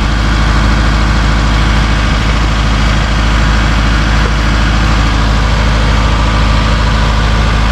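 Mazda Titan truck's diesel engine idling steadily, loud and even.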